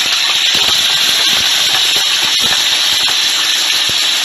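Raw chicken wings sizzling in hot sesame oil with ginger slices in a steel frying pan: a loud, steady hiss with scattered crackles as they are stirred with a spatula.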